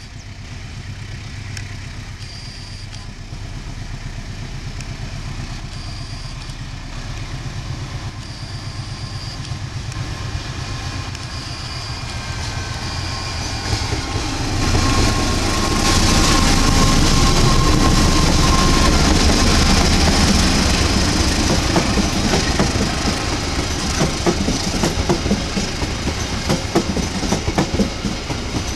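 KAI CC 206 diesel-electric locomotive approaching and passing, its sound building to its loudest about halfway through, followed by the passenger coaches rolling past with a rhythmic clickety-clack of wheels over the rail joints.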